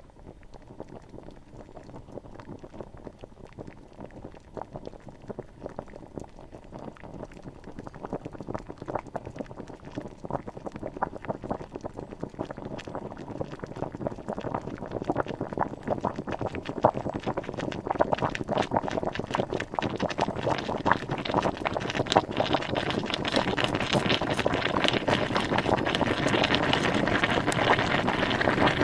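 Water coming to the boil: a crackle of small popping bubbles that grows steadily louder and denser, building into a full rolling boil near the end.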